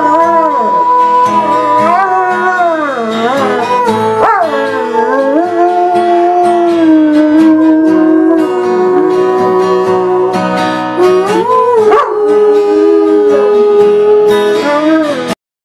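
A dog howling in long drawn-out notes that slide up and down in pitch, with music, cutting off suddenly near the end.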